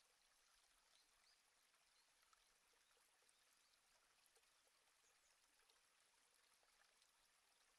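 Near silence: a faint, even hiss with scattered tiny ticks.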